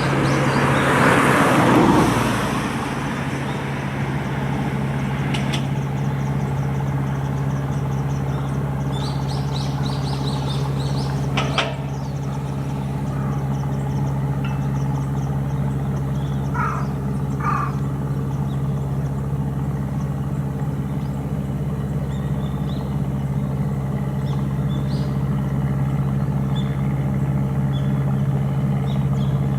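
An engine running steadily, a low even hum that holds its pitch throughout, with a brief rushing noise in the first two seconds and a few short bird chirps about two-thirds of the way through.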